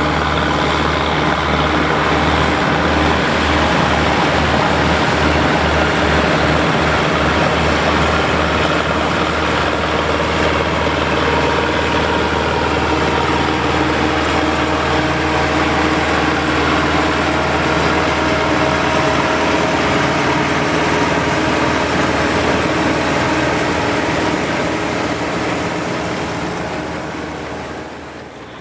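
Farm harvesting machinery engine running steadily, with a low throbbing for a few seconds early on; the sound drops away near the end.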